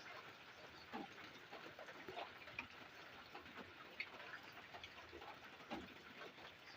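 Faint, steady rain: an even hiss with scattered individual drops landing at irregular moments.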